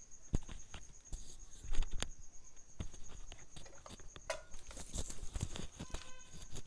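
Irregular knocks and clicks of kitchen utensils being handled, the loudest about two seconds in, with a brief squeak near the end. A cricket's steady high trill runs behind.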